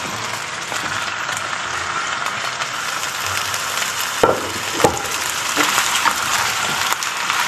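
Stir-fry sizzling steadily in a hot oiled pan as fresh vegetables cook with beef in black bean sauce. Two sharp spatula knocks against the pan come about four and five seconds in.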